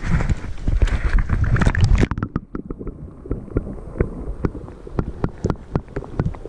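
Wind and water sloshing over a camera's microphone at the lake surface. About two seconds in, the camera goes under the water and the sound turns muffled, with a string of small clicks and knocks.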